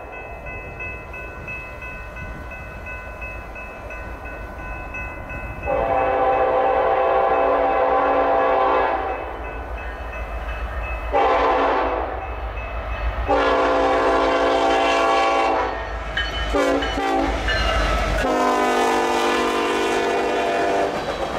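Union Pacific diesel freight locomotive's multi-chime air horn sounding for a grade crossing as the train approaches: a long blast, a shorter one, another long one, a brief toot, then a final long blast that drops in pitch as the engines pass. The low rumble of the diesels runs underneath.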